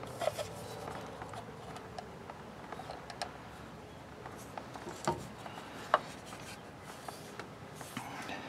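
Front-axle 4WD disconnect actuator being worked off the axle housing by hand: faint rubbing and scraping of plastic on metal, with a few light clicks and knocks, the sharpest about six seconds in.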